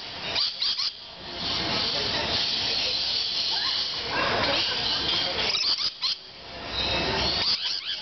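Rainbow lorikeets screeching and chattering, a shrill, continuous din that dips briefly twice.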